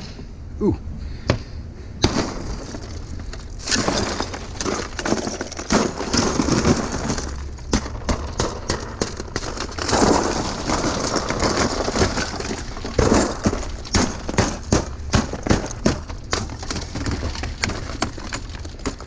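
Tempered glass being smashed: a few knocks, then from about four seconds in continuous crunching and tinkling as the glass breaks up, with many sharp hits.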